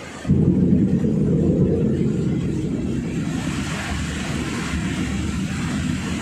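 Thunder from a close lightning strike: a loud low rumble starts suddenly about a quarter second in and slowly fades, over steady rain.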